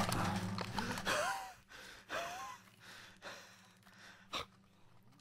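A person's breathy gasps close to the microphone, with two short gliding vocal sounds in the first half. Fainter breaths and a single click follow.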